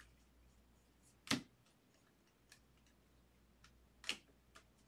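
Baseball cards being flipped through by hand, giving a few sharp clicks as cards slide and snap against the stack. The loudest comes about a second in and another near four seconds, with fainter ones between.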